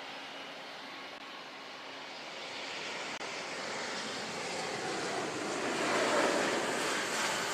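Twin jet engines of an Austral Embraer E190 airliner rolling along the runway and passing by, the rushing sound growing louder to a peak about six seconds in and easing off slightly near the end.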